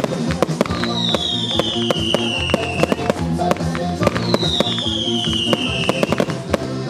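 A fireworks display: many sharp firework bangs and crackles, over loud recorded music with a steady bass line and a falling high tone that comes back about every three seconds.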